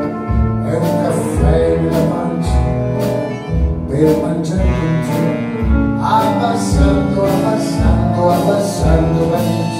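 Small live band playing a song: a bass line on a steady beat, drum and cymbal hits, and acoustic guitar, with a man singing into the microphone.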